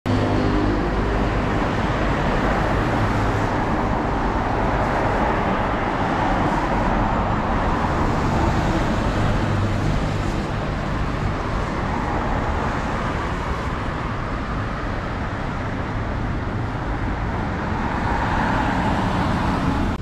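City road traffic on a wet, snowy road: a steady hiss of tyres and engines, with a low engine hum in the first half and louder swells as vehicles pass.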